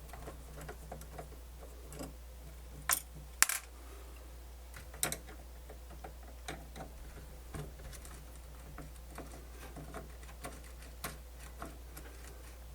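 Scattered light clicks and taps of a screwdriver and small metal parts being handled on a cassette deck's tape mechanism while it is being unscrewed, the sharpest two close together about three seconds in. A steady low hum runs underneath.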